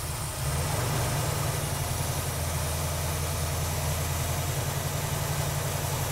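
The carbureted engine of a 1965 Chevrolet Impala runs steadily at a fast idle, held about 1,000 rpm over idle, while Sea Foam Spray is drawn through the carburetor throat into the hot intake. It gets a little louder about half a second in.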